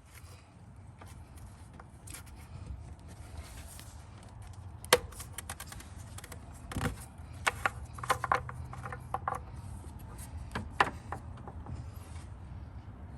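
Scattered light clicks and knocks of hand work at the engine, with one sharp knock about five seconds in and a cluster between about seven and eleven seconds, as a bottle of clean motor oil is opened and readied to pour into the drained engine for a flush.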